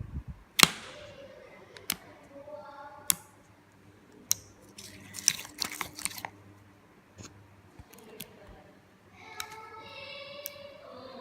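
Slime being poked with one finger: irregular sharp clicks and small pops, the loudest about half a second in and a quick cluster of them in the middle.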